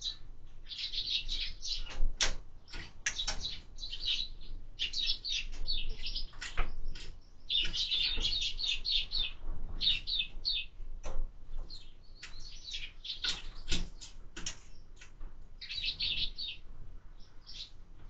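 Eurasian tree sparrows chirping in rapid runs of short, high notes as they squabble over a feeder, with sharp knocks and wing flutters from birds landing and pecking at it.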